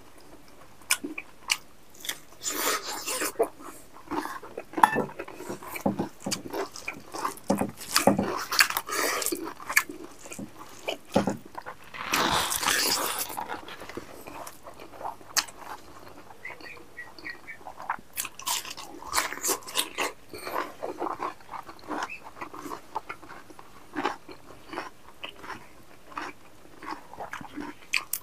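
Close-up mukbang eating sounds: a man chewing and biting rice, meat curry and vegetables eaten by hand, with wet mouth clicks, smacks and crunches in uneven bursts.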